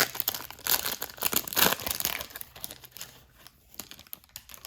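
A trading-card pack wrapper being torn open and crinkled. The crackling is loudest for the first couple of seconds, then thins to lighter rustling and cuts off suddenly near the end.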